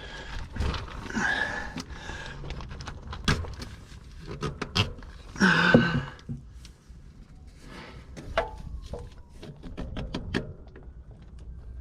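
A man grunting and breathing hard as he strains to work an oil filter loose, twice, amid scattered clicks and knocks of the filter wrench and filter.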